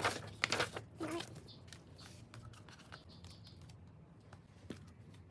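Album packaging being handled and opened by hand: a cluster of crinkles and clicks in the first second, then softer, scattered rustling and small clicks.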